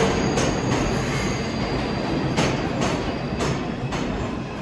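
R142/R142A New York subway train running through the station: a steady rumble of wheels on rail with a few sharp clicks as the wheels cross rail joints, and faint high wheel squeal.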